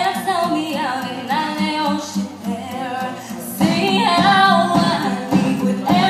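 A girl singing into a handheld microphone over backing music, a sustained melody with held notes; the accompaniment grows fuller about three and a half seconds in.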